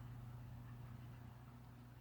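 Faint, steady low hum of a running dishwasher.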